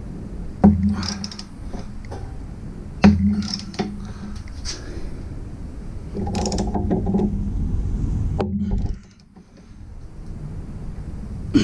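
Socket ratchet wrench clicking as a sway bar mounting bolt is tightened: a few separate clicks, then a denser run of ratcheting about six seconds in that stops near nine seconds.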